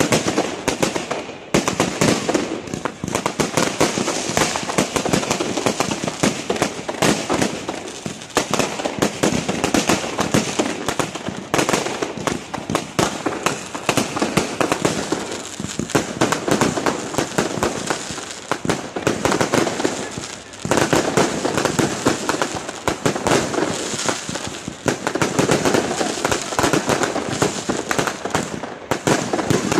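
Fireworks going off in a dense, continuous barrage of rapid bangs and crackles, letting up briefly a few times.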